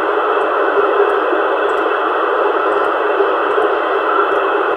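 Steady hiss from a CRT 7900 CB radio's speaker on FM channel 30, the open-channel noise of the receiver between transmissions with no station speaking.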